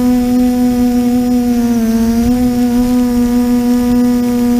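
TBS Discovery quadcopter's motors and propellers humming steadily as heard from the onboard camera. The pitch dips briefly about two seconds in as the motors slow, then comes back up. Wind rumbles on the microphone underneath.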